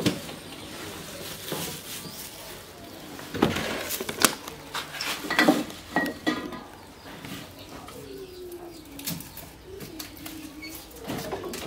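A bird calling with low, falling notes in the second half, after a few sharp knocks and clatters in the first half.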